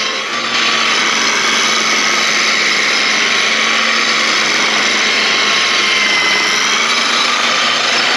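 Parkside PWBS 180 B2 wall and floor sander running with a steady motor whine and the hiss of the sanding disc, getting louder about half a second in.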